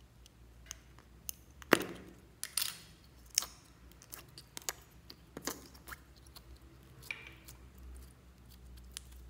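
Sharp clicks and snaps of a small plastic slime cup being opened, the loudest snap about two seconds in, followed by scattered smaller clicks as clear slime is pressed out of the cup with a thumb.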